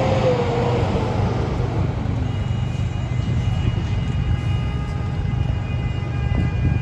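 City street traffic: vehicle engines running with a steady low rumble. A wavering pitched tone sounds over the first second, and faint steady high tones carry on from about two seconds in.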